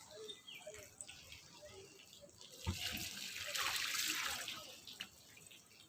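Water being poured onto potted plants. A knock is heard near the middle, then a rush of splashing water lasts about two seconds.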